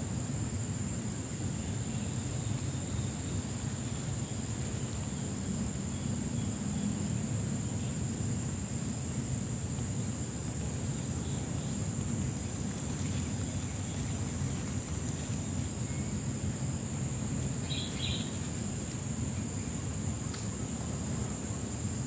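Steady outdoor background noise: a low rumble with a continuous high-pitched insect drone over it, and a brief faint high-pitched sound about 18 seconds in.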